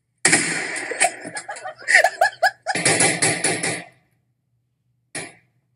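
Long-gun shots from gun-fail video clips: sudden loud bangs about a quarter second in, near three seconds, and a short one near the end, with a person laughing in between.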